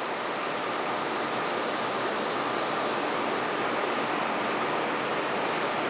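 Steady rushing hiss of a reef aquarium's water circulation, running evenly with a faint hum underneath.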